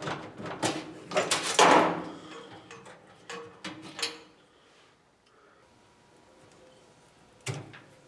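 Handling noise of wires being pulled and worked through the gauge holes of a jeep's steel dash panel: a run of clicks, taps and rustling over the first four seconds, loudest just before two seconds in, then quiet with a single knock near the end.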